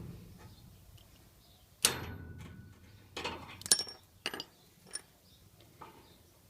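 Metal lock-picking tools clicking and clinking against a seized Master Lock padlock as it is worked. A sharp, ringing metallic click about two seconds in, then a quick cluster of lighter clicks, and a few fainter ones spaced out after.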